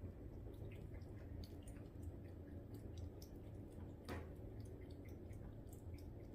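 Faint, scattered small clicks and ticks over a low steady hum, with one sharper click about four seconds in.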